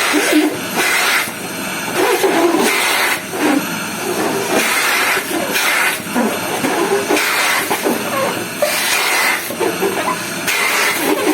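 Vacuum cleaner running at a high power setting, its nozzle sucking kemuncup grass seeds off hanging trousers. The loud hiss of its airflow swells and eases about once a second.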